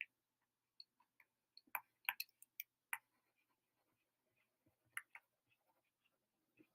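Faint, scattered clicks and taps over near silence, with a cluster of them about two to three seconds in and another pair around five seconds.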